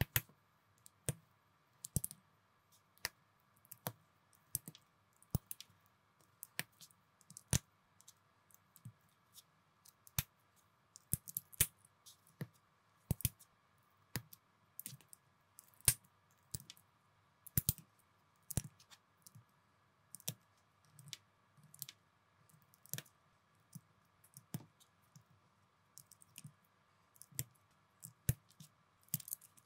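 Small Lego-compatible plastic bricks being snapped together and pressed onto plates by hand: irregular sharp clicks, sometimes two or three in quick succession.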